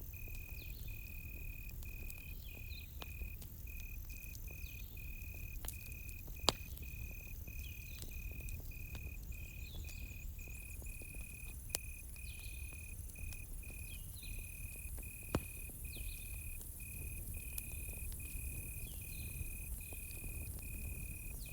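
Cricket chirping steadily in a quick, even rhythm, over the low crackle of a campfire. Three sharp pops from the fire stand out, the loudest about six seconds in.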